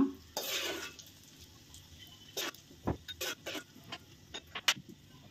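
Steel perforated skimmer scraping briefly, then clinking and tapping against a glass bowl and an aluminium kadai in a scattering of sharp, irregular taps while fried seeds are scooped out of the ghee.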